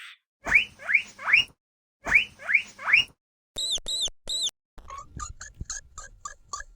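Mouse squeaks: two sets of three quick rising squeaks, then three short high peeps, then a fast run of about eight short chirps.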